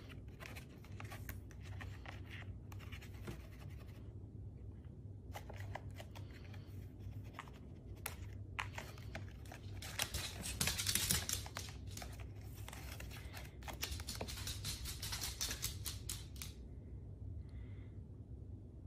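Scratching and rustling with light clicks as a cat moves and paws inside a slatted plastic basket, its claws and fur brushing the plastic. The scratching grows louder about ten seconds in and again from about thirteen to sixteen seconds, then dies down.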